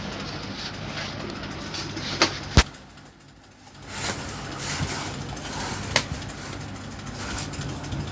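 Three sharp knocks over a steady low hum and hiss, the loudest about two and a half seconds in, with the background briefly dropping away just after it.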